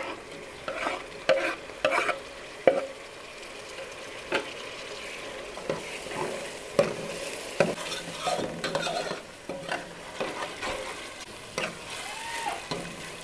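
Chopped tomatoes scraped off a wooden board with a knife into a pot of onion, carrot and peppers frying in oil, then stirred in with a metal ladle: a steady sizzle with repeated scrapes and knocks of metal on the pot.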